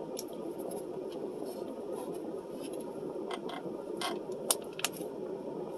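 Steady low hum in a car's cabin, with a few sharp mouth clicks and smacks from chewing food over the second half.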